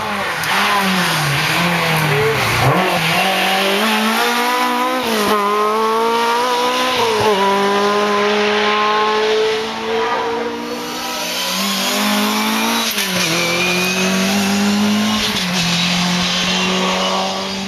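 Rally car engine accelerating hard through the gears: the revs climb and then drop sharply at each of several upshifts, with one longer pull in the middle.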